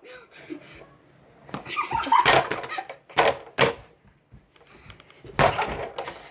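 Fists punching a speed bag, several sharp slapping hits spaced irregularly with short pauses between them.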